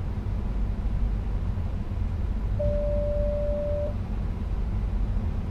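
Steady low rumble inside the driver's cab of an NS Sprinter Lighttrain electric train. Partway through, a single electronic beep at one steady pitch sounds for just over a second.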